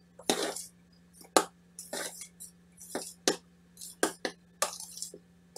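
Metal spoon stirring cake batter round a mixing bowl, clinking and scraping against the bowl's side about twice a second.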